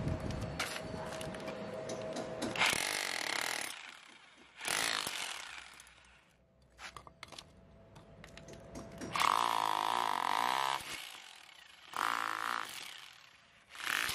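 Teeno rotary hammer drill in chisel mode, its chisel bit hammering a red clay brick apart. It runs in short bursts with quieter pauses between.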